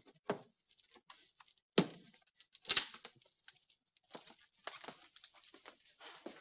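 Papers and a file folder rustling as files are taken from a wooden cabinet, with two louder knocks about two and three seconds in.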